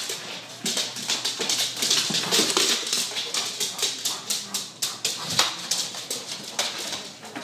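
Black Labrador scrabbling after a giant tennis ball on a hardwood floor: a steady run of irregular clicks and scrapes from its claws on the wood and its mouth and teeth working at the ball.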